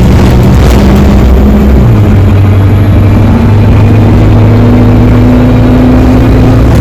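ADL Enviro 200 bus heard from on board: the diesel engine hums low and steady, and after about two seconds a whine from the drive axle rises slowly as the bus picks up speed. The axle whine has an electric-motor-like sound that is unusual for this bus.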